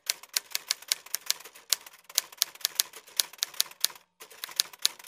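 Typewriter sound effect: rapid key clacks, about five a second, keeping time with text typing itself out on screen, with a brief break just after four seconds.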